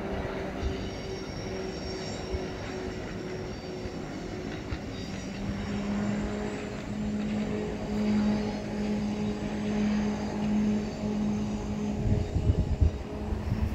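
Distant passenger train passing: a steady engine drone with a held hum that grows stronger about halfway through, and some low rumbling near the end.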